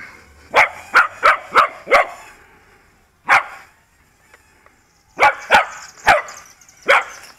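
Dog barking in short, sharp single barks, about ten in all: a quick run of five in the first two seconds, then spaced barks.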